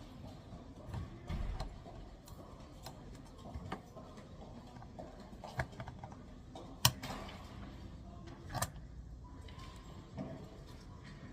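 Scattered light clicks and taps of hand tools working on a circuit board during desoldering, the sharpest about seven seconds in.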